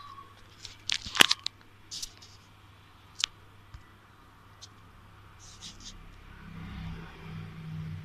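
Handling noises: a scatter of sharp clicks and taps, the loudest about a second in, then a low hum from about six seconds in.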